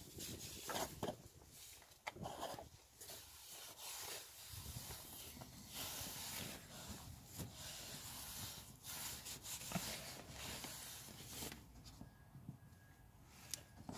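Used engine oil pouring in a thin stream from the sump drain hole into a drain container, a faint trickling, with a few small clicks and knocks.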